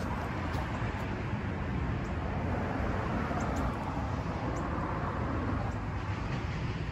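Steady background hum of city traffic, with no distinct single event standing out.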